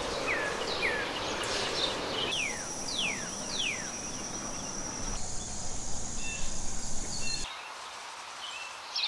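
Woodland ambience of birds and insects, edited together in short pieces: a series of falling whistled bird notes over the first four seconds with a steady high insect drone under them, then a different steady insect buzz with a few short chirps, and a quieter stretch near the end.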